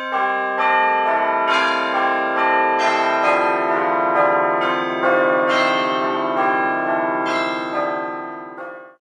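Bells ringing a slow sequence of notes, each strike ringing on under the next, fading out and stopping just before the end.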